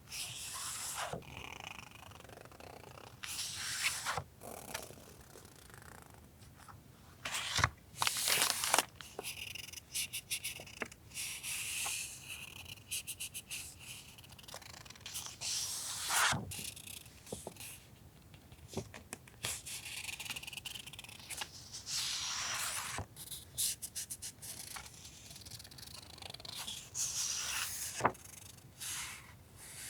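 Paper and plastic packaging rustling and crinkling as stationery is handled, in irregular bursts with a few sharp taps and clicks.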